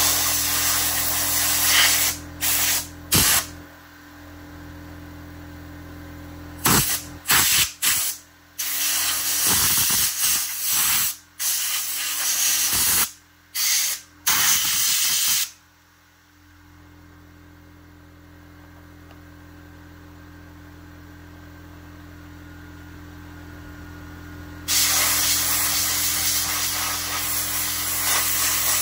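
Compressed-air blow gun blasting dirt and dust out of a chainsaw, in bursts: a few short blasts, a run of short and longer blasts over the first fifteen seconds or so, a pause of about nine seconds, then one steady blast near the end.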